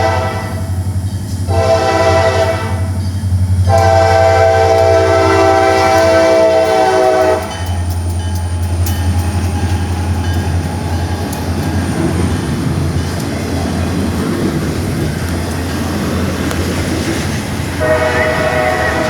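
CSX diesel freight locomotive's air horn sounding blasts for a road grade crossing, the last a long blast that cuts off about seven seconds in. The locomotive and intermodal railcars then rumble past with a steady low engine hum and wheel noise. The horn sounds again near the end.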